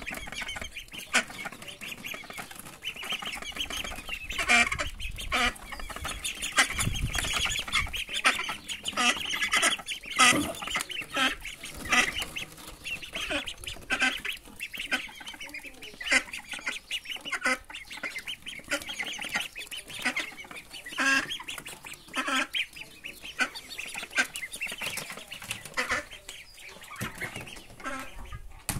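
A brood of ducklings peeping, many short, high calls a second with no letup, as they crowd around to feed.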